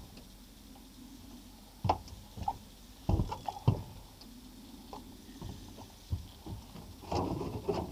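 Irregular knocks and clunks on a fishing boat as an angler fights a fish on a bent rod, the loudest about two and three and a half seconds in, followed by a longer rush of noise near the end.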